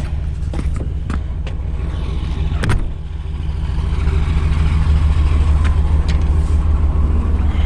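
Truck engine idling steadily, with a few sharp clicks and knocks in the first three seconds, the strongest a little under three seconds in.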